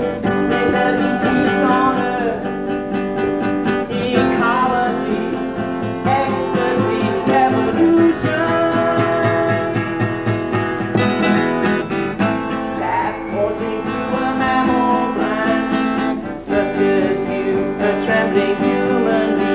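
Music: a solo acoustic guitar playing a folk song, live.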